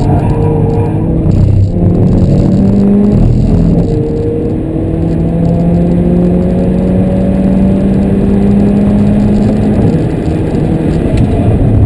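Mercedes A45 AMG's turbocharged 2.0-litre four-cylinder engine under hard acceleration, heard loud from inside the cabin. The engine note climbs slowly and drops back twice, about three and about ten seconds in, as it shifts up, with heavy road and tyre rumble beneath.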